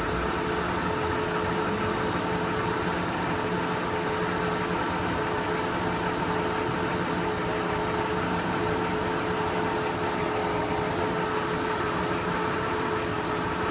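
1963 Chevrolet 194 cu in (3.2 L) straight-six running at a steady warm idle, about 667 rpm, on its points ignition. A steady hum sits over the engine noise.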